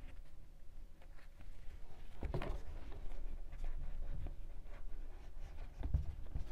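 Macrame yarn rustling and scraping as it is worked with a crochet hook, with scattered light ticks. Two soft bumps come, about two seconds in and again near the end.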